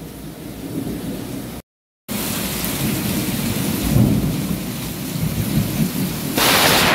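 Rain falling on a pond's surface, with low rolling thunder rumbling under it. The sound drops out completely for about half a second near two seconds in, and a short, loud burst of hiss comes near the end.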